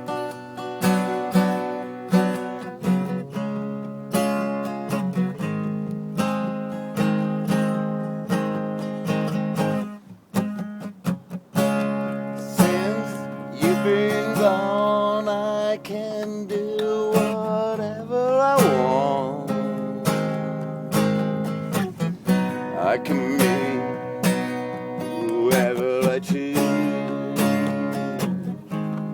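Acoustic guitar strumming chords in a steady rhythm, with a brief break about ten seconds in. A wavering melody line with bending pitch plays over it through the middle and again near the end.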